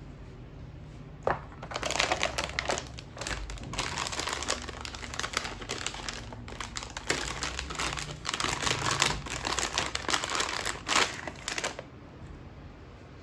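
Packaging of a graphics card being unsealed and opened by hand: a click, then about ten seconds of continuous crinkling and rustling of wrapping and box, stopping near the end.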